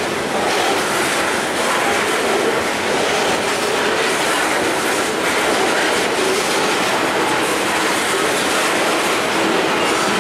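Freight train of railroad tank cars rolling past close by: steady noise of steel wheels running on the rails, with no let-up.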